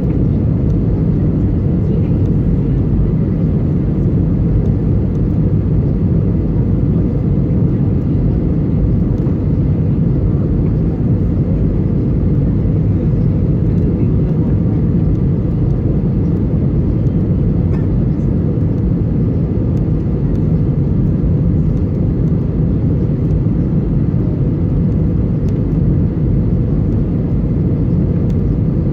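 Steady low rumble of an Airbus A320-family airliner's engines and rushing air, heard inside the passenger cabin.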